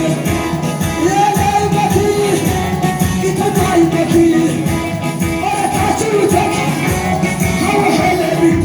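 An Ethiopian gospel song: a voice sings a melody over steady band accompaniment with a regular beat.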